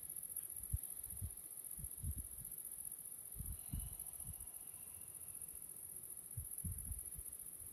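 Steady high-pitched chirring of field insects, with irregular low thumps underneath.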